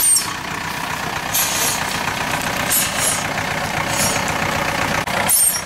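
GAZ-66 truck's engine running at low revs as the truck crawls slowly over rough forest ground. Short high hisses come and go about every second and a half.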